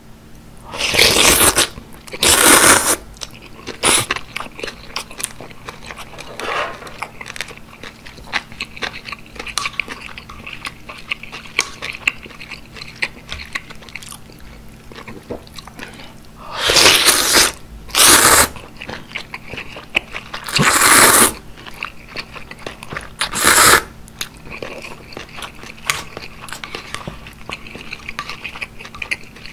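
Close-miked eating of beef gukbap with thin noodles: several loud slurps, bunched near the start and again in the second half, with wet chewing and small mouth clicks between them.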